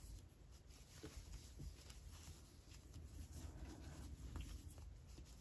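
Near silence, with faint rustling and light scattered ticks of a metal crochet hook working worsted yarn.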